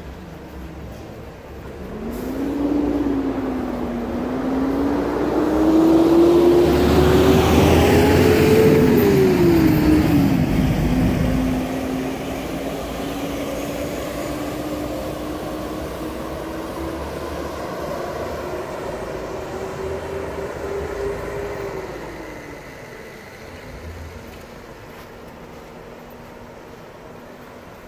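An engine running, its pitch climbing and dropping as it speeds up and slows, loudest about six to ten seconds in, then holding a steadier pitch before falling away near the end.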